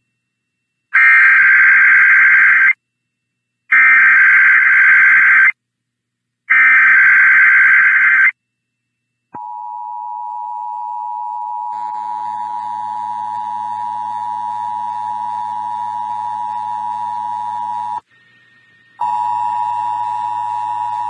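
EAS SAME header: three identical bursts of warbling digital data tones, each nearly two seconds long and about a second apart. Then the steady two-tone EAS attention signal (853 and 960 Hz) starts, drops out briefly near the end and resumes.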